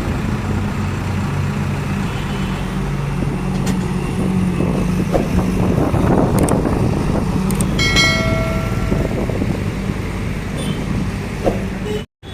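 Diesel engine of a JCB 3DX backhoe loader running at working revs, its pitch shifting a little as the machine works. About eight seconds in, a high steady tone sounds for a second or more.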